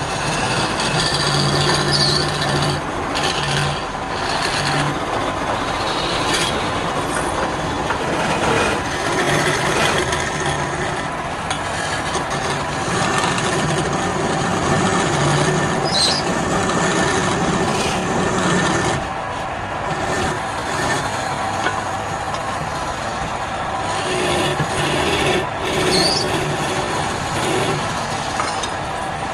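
Wood lathe running while a turning tool cuts into the spinning wood, giving a continuous scraping, rasping noise over the motor's hum.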